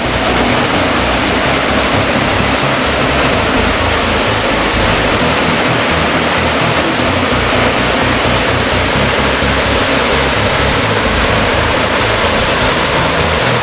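Waterfall rushing, a steady loud roar of water.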